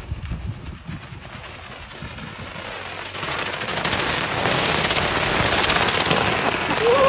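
A roll of plastic stretch wrap unspooling fast as a car pulls the film off it: a rapid crackling rattle that builds up and is loud from about four seconds in. A few low knocks come near the start.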